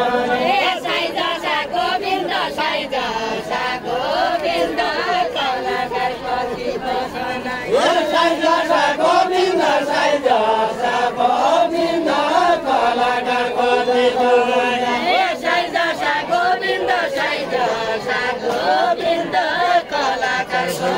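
Several voices singing a Deuda folk song together in a chant-like melody, with no instruments heard. A new, louder sung line begins about eight seconds in.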